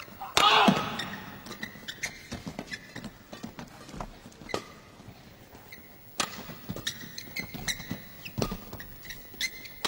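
Rackets hitting a shuttlecock in a fast badminton rally: sharp hits about once a second, with short squeaks of shoes on the court floor and a louder burst of noise just after the start.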